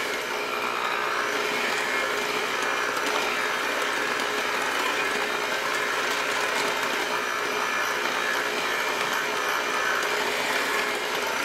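Cuisinart electric hand mixer running steadily on its lowest speed, a constant motor hum as its beaters work flour into cake batter.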